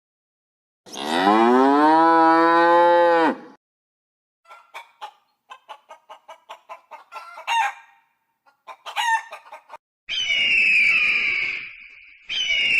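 A cow mooing once, a long call of about two and a half seconds, followed by a hen clucking rapidly with a couple of rising squawks. Near the end, a loud, high, falling call sounds twice.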